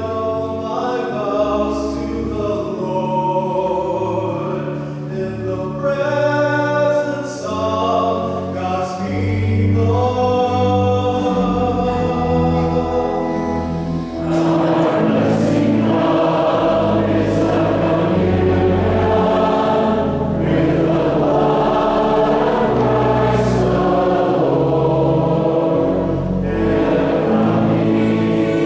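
Church singing: a cantor sings a solo line over a sustained low accompaniment. About halfway through, a choir joins in and the singing becomes fuller and louder.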